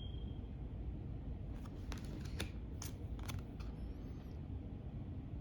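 Tarot cards being handled and flipped one after another, giving a quick series of light snapping clicks about one and a half to three and a half seconds in. A brief faint high ping sounds at the very start.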